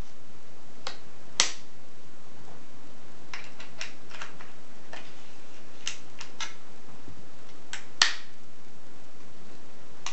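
Metal clicks of a wheellock pistol's lock being worked by hand: a sharp snap about a second and a half in and another about eight seconds in, with a run of lighter clicks between them.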